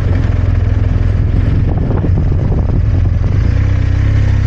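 Motorcycle engine running steadily as the bike rolls off at low speed, picked up by a helmet-mounted action camera's built-in microphone.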